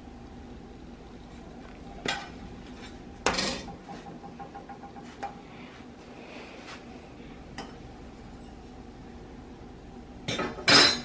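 Metal kitchen utensils clinking and clattering against a griddle, pans and dishes: a few scattered knocks, a short clatter a few seconds in, and the loudest burst near the end.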